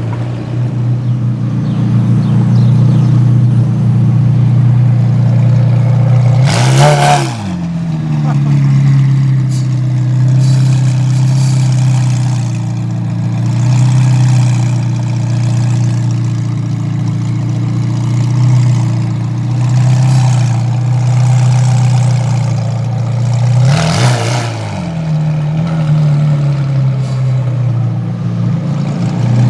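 Car engines in street traffic: a steady low engine drone throughout, with two vehicles passing close by, one about seven seconds in and one around twenty-four seconds, each dropping in pitch as it goes past.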